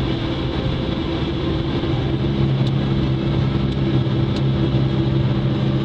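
Quad ATV engine running steadily, its note shifting slightly about two seconds in.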